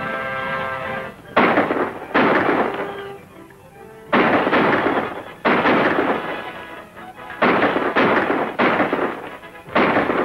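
Movie gunfire: a string of about eight sharp shots a second or so apart, each trailing off in a short echoing tail, over orchestral film-score music.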